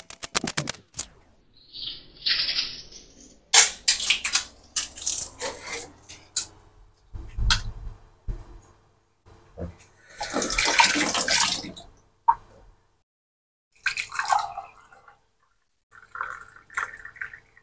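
Boiled eggs being peeled over a stainless-steel sink: shells cracking and crinkling, with water splashing into the sink in short spells. Near the end, tea is poured through a strainer into a mug.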